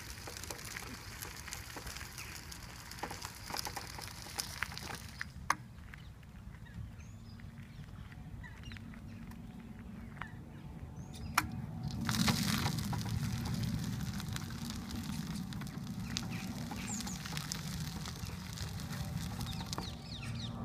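Power wheelchair tyres and walking footsteps crunching on a gravel path, with a few short bird chirps. The sound grows louder and fuller about twelve seconds in.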